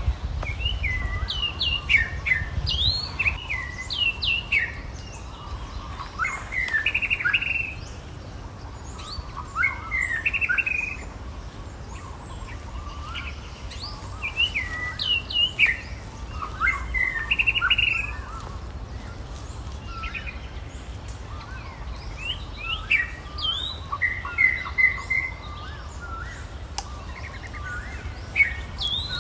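Birds chirping in short bouts every few seconds: quick, high notes that drop in pitch, some in fast runs, over a steady low rumble.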